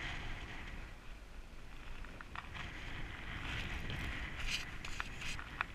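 Snow crunching and gloves and clothing rustling right at a GoPro camera, with a few light clicks and knocks in the second half, over a low rumble of wind on the microphone.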